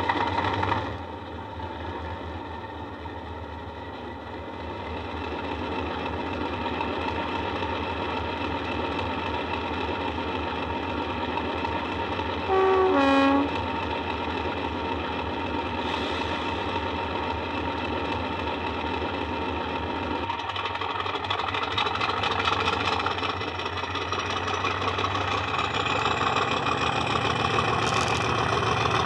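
Recorded Class 50 diesel engine sound (English Electric 16-cylinder) played by a DCC sound decoder through a small EM2 speaker in a Hornby OO-gauge model. The engine drones steadily at idle. A short horn blast of about a second sounds midway. From about two-thirds of the way through, the engine note changes and a rising whine builds as the locomotive powers away.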